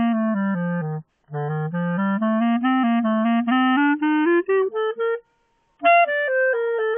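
Solo clarinet playing a fast étude passage of running notes, low in the range at first, then climbing higher. It breaks off briefly about a second in and again for about half a second a little after five seconds, then carries on.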